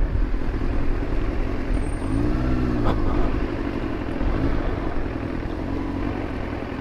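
Yamaha FZ1 inline-four motorcycle running on the road, its engine mixed with steady wind and road rumble on the helmet camera's microphone. A short tone rises and falls about two and a half seconds in.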